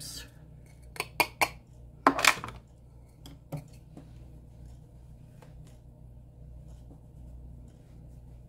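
Clicks and knocks of small hard makeup items, compacts and a brush, being handled and set down: three quick clicks about a second in, a short clatter just after two seconds, and two more clicks soon after, then only a faint steady hum.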